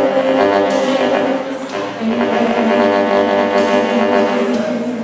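Instrumental church music: long held chords, changing about two seconds in.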